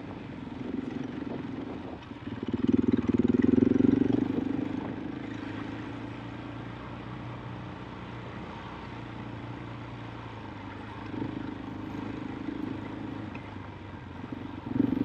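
KTM 500 EXC-F enduro bike's single-cylinder four-stroke engine running steadily at low revs. It swells louder from about two to four and a half seconds in, and more gently again around eleven seconds.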